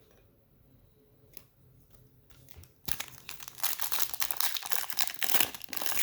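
A thin trading-card pack wrapper being torn open and crinkled. It starts suddenly about three seconds in, after a quiet stretch with a few faint clicks of cards being handled.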